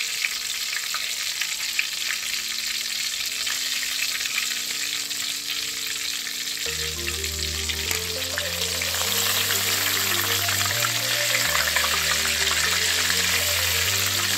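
Stuffed mirchi bajjis deep-frying in hot oil: a steady, dense sizzle with fine crackling. Background music grows louder about halfway through.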